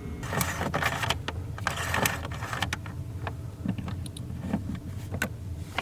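Clicks, knocks and short rustling noises from handling the rice cooker pot and utensils, bunched in the first two or three seconds, over a steady low hum.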